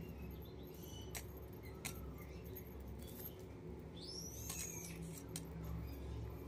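Plastic wire strands rustling and clicking against each other as they are threaded and knotted into a woven plastic wire bag, with a few separate ticks. About four seconds in a bird chirps faintly over a low steady hum.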